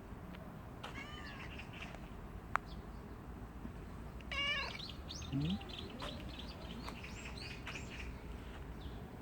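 Stray cat meowing a few times, with a clear meow about a second in and a louder one around four and a half seconds. A single sharp click sounds about two and a half seconds in.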